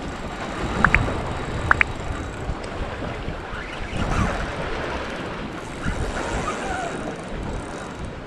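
Wind buffeting the microphone over sea surf, with a few handling knocks and two brief high squeaks, about a second in and again near two seconds.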